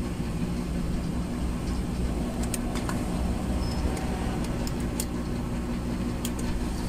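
Steady low electrical hum from the powered-up amplifier under repair, the humming the technician ties to the DC fault he is tracing. A few light clicks sound over it.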